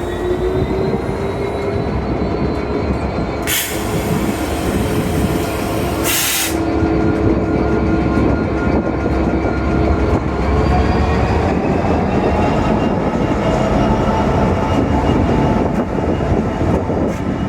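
A train running at close range: a steady rumble with a droning tone that drifts slowly in pitch. Two short hisses come about three and a half and six seconds in.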